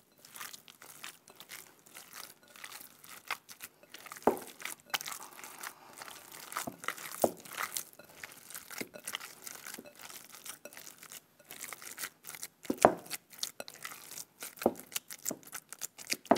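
Bare hands kneading raw minced meat mixed with grated onion, herbs, spices and a little oil in a glass bowl: an irregular run of soft wet squishes and crackles, with a couple of louder smacks about four and thirteen seconds in.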